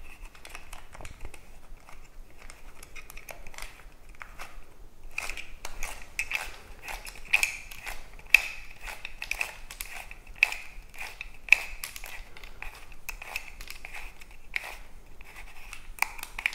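Small clicks, taps and scrapes of a tripod quick-release plate being fitted and screwed tight onto the base of a DSLR camera, with the camera body being handled; a few sharper clicks come in the middle.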